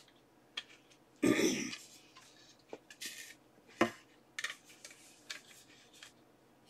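Light clicks and knocks of a wooden futon drawer panel and its small hardware being handled, with one sharper knock about four seconds in. About a second in there is a short throat-clearing vocal noise.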